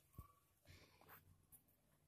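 Near silence, with faint rubbing and pressing sounds from hands kneading a stiff flour dough, and a small tap near the start.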